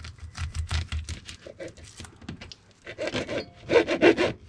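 Serrated kitchen knife sawing through a nori-wrapped sushi roll on a plastic cutting board: a quick run of rasping strokes in the first second, then a louder run about three seconds in.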